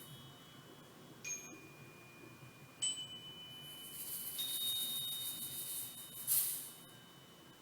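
Metal chime struck three times, about a second and a half apart, each clear high note ringing on after the strike, with a soft high hiss and a short swish near the end.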